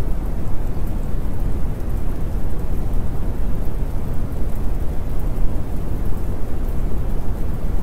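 Steady, low, rumbling noise like a heavy rainstorm, the continuous masking background of a subliminal audio track.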